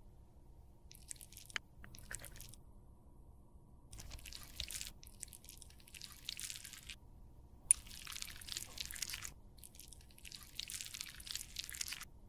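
Hobby-knife blade slicing and shaving through a waxy lipstick bullet, in about five crisp, scratchy strokes of a second or two each, with one sharp click nearly eight seconds in.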